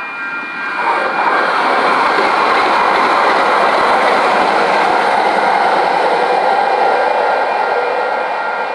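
Metro Blue Line light-rail train passing at a street crossing, its wheels running on the rails. The sound builds about a second in, stays loud, and eases near the end.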